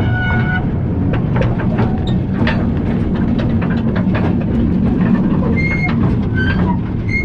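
Coal-mine tour trolley train running on its rails: a steady heavy rumble of the wheels with rapid clacking over the track. Brief high-pitched wheel squeals at the very start and again in the last couple of seconds.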